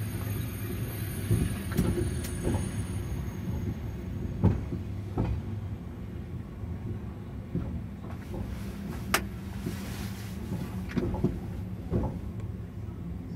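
TGV heard from inside the driver's cab, rolling slowly into the station: a steady low rumble with scattered clicks and knocks, a sharp click about nine seconds in. A thin high whine fades out in the first few seconds as the train slows.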